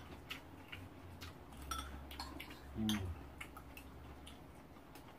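Light, scattered clinks of spoons and chopsticks against a frying pan and small bowls during a meal, two or three faint taps a second. A brief low hum of a voice about three seconds in.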